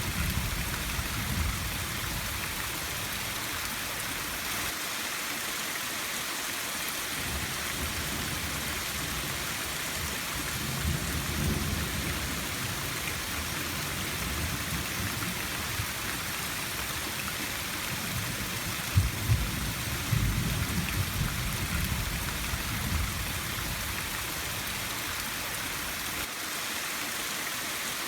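Steady rain hissing, with low rolls of thunder rumbling underneath a few times, the loudest about two-thirds of the way through.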